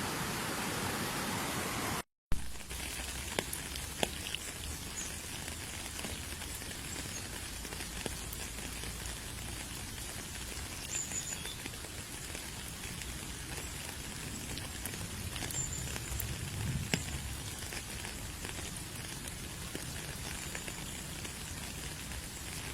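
Steady rushing hiss of a waterfall that cuts out abruptly about two seconds in. It is followed by a quieter spattering of falling water with scattered drips and splashes.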